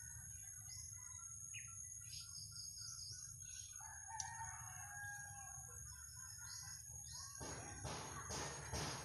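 Small birds chirping in short scattered calls over a low steady background rumble. About three-quarters of the way in, a run of brushing, rustling strokes starts, roughly two a second, as the bonsai's ficus leaves are handled and stripped.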